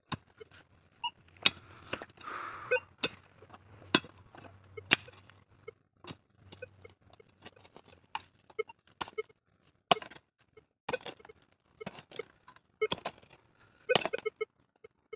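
A small hand pickaxe chopping into hard, stony soil: irregular sharp strikes about every half second to a second, some with a clink as the blade meets stones, with loose earth scraped and scooped out between blows.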